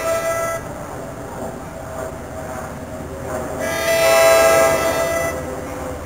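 An approaching NJ Transit train's horn: one blast that ends about half a second in, then a second, louder blast of under two seconds starting about three and a half seconds in.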